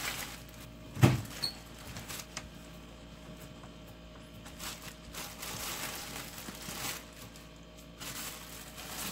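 Thin plastic wrap rustling and crinkling in several bouts as it is peeled off a large flat disc of bulgur kubba dough, with one dull thump about a second in.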